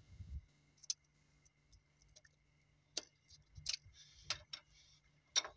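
Hand tools clicking and tapping on the rocker arms of a Cummins NT855 diesel engine during tappet adjustment: about six sharp metallic clicks at irregular intervals, the loudest near the end, over a faint steady low hum.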